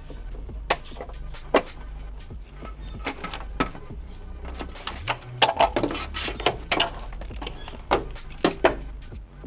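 Scattered sharp clicks and plastic snaps as an automotive wiring harness is taken apart by hand: tie wraps cut and connectors and loom handled. The clicks come in an irregular cluster about halfway through and again near the end.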